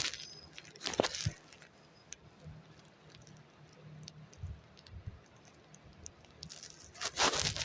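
Scattered light taps and clicks, with a sharper knock about a second in and a louder rustling scrape near the end, over a faint low hum.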